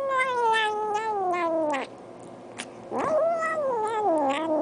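A domestic cat giving two long, drawn-out meows. The first slides down in pitch and stops just under two seconds in. The second starts about a second later, rises, then wavers and falls.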